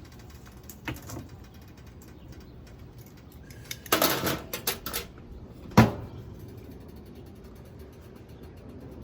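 Metal cookware and utensils being handled: two light knocks, then a clatter of clinks about four seconds in and one sharp clank just before six seconds.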